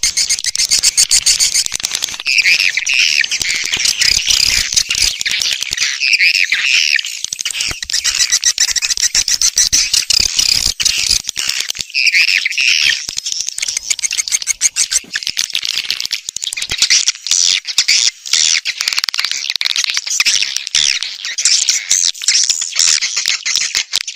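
Swiftlet lure recording: a continuous, dense chorus of high-pitched swiftlet chirps and rapid clicking twitters, played through speakers to call swiftlets in to nest in a swiftlet house.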